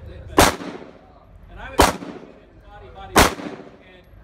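Three shots from a 9mm Glock 19 pistol, fired at an even slow pace about a second and a half apart, each with a short ringing tail.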